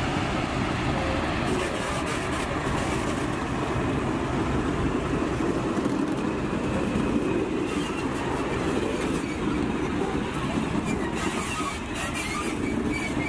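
Vintage diesel locomotive running and rolling slowly past close by: a steady engine rumble mixed with wheel and rail noise.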